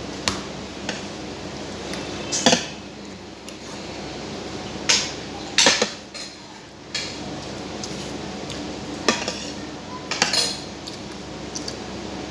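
Spoon and fork clinking and scraping against a plate or bowl while eating, in irregular scattered clicks, a few louder ones about two and a half, five to six and ten seconds in.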